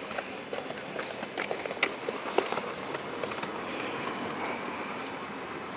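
Steady outdoor background noise, with several short sharp clicks and taps in the first half.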